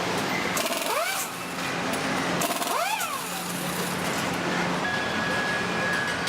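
Truck assembly-plant floor noise: a steady machinery hum and hiss with scattered clicks, two short whines that rise and fall about a second and three seconds in, and a steady high tone starting near the end.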